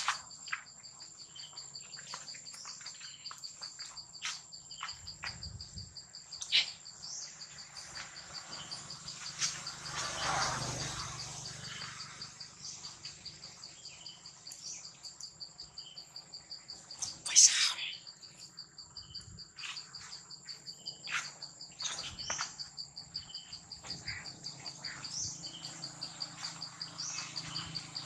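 Insects droning steadily at two high pitches with a fine, fast pulse. Short chirps and clicks are scattered over it, the loudest a sharp chirp about seventeen seconds in.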